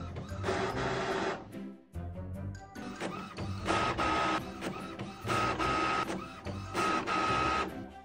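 Epson WorkForce WF-2750 inkjet printer printing a photo: the print head runs across the page in four short passes, about a second and a half apart. Background music with a steady beat plays underneath.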